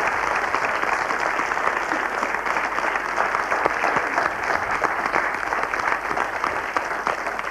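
Studio audience applauding: dense, steady clapping from many hands at the end of a stage act.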